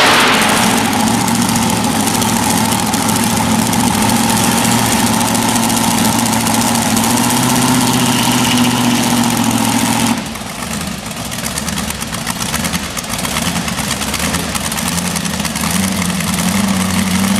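Modified pulling tractor's engine dropping to a loud, steady idle at the end of a pull. About ten seconds in, the hiss above it drops away and the overall level falls, and near the end the engine note rises a little.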